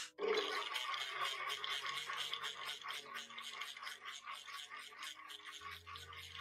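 Powelix Life high-speed blender switched on with a click of its dial, then running loud and steady as it grinds vanilla pods with sugar and liquid into paste, a whir with a fast flutter through it.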